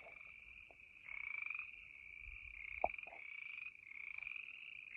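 A loud chorus of frogs calling: overlapping pulsed trills follow one after another with barely a gap. A single sharp click comes about three seconds in.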